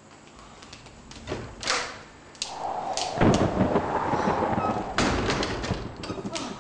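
Several thuds and knocks as a wooden door is swung and pushed shut, the loudest near the end, over a loud rumbling noise from about the middle on.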